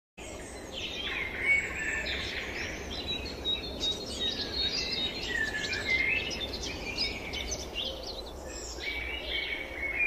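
A chorus of several songbirds singing at once, overlapping whistled phrases, rising and falling notes and quick trills.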